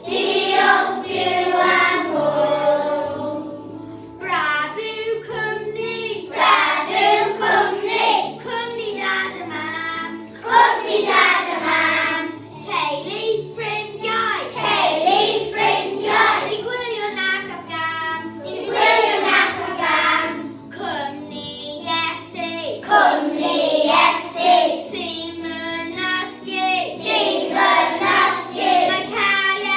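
Children singing a song together over a steady musical backing.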